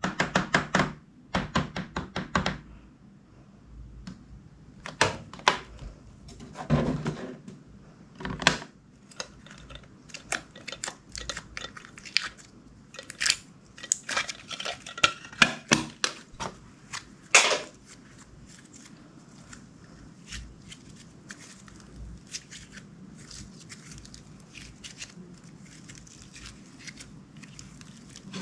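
Clear slime being handled by hand: a long run of sharp clicks and snaps, densest over roughly the first eighteen seconds, then softer, quieter handling sounds.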